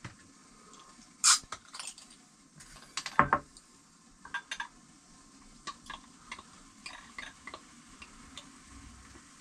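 Glass beer bottle being opened, with a sharp crack about a second in and a few knocks around three seconds, then beer poured from the bottle into a glass, with scattered small clicks and clinks as it goes.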